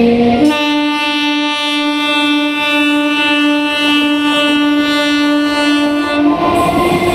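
Electric local train (EMU) sounding one long, steady horn blast, starting about half a second in and cutting off near the end, over the whine of its traction motors climbing in pitch as it accelerates away from the platform; the motor whine is heard alone again at the end.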